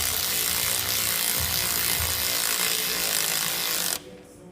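Power tool running steadily as it spins a nut onto a stud holding the driveshaft's CV joint, then stopping abruptly about four seconds in.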